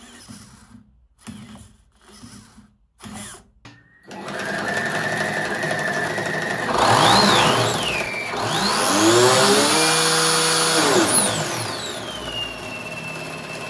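Test rig for a 3D-printed ABS clutch with a rubber friction plate: a few short servo whirs, then an electric motor starts and drives the belts with a steady whine. The whine rises and falls in pitch several times as the clutch takes up load, then settles into steady running.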